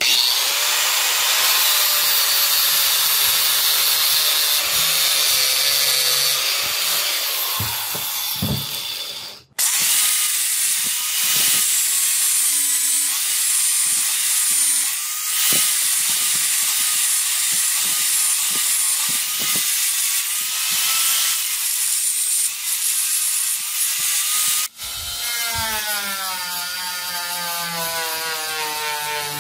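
Handheld power tool spinning a sanding and polishing disc against a steel knife handle, a steady grinding hiss from metal being abraded. The sound stops briefly twice, and after the second break the tool's whine comes through, wavering up and down in pitch as the disc is pressed and eased.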